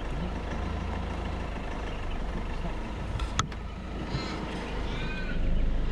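A motor vehicle running with a low, steady rumble, with a sharp click about three and a half seconds in.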